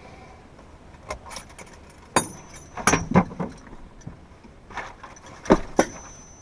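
Irregular clicks, knocks and light rattles of things being handled in a small aircraft's cockpit, with the engine shut down. The loudest knock comes about five and a half seconds in.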